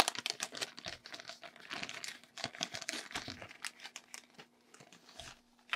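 Small clear zip-lock plastic bag crinkling and crackling as it is pulled open and handled, with many quick crackles that thin out after about three seconds and a sharp click near the end.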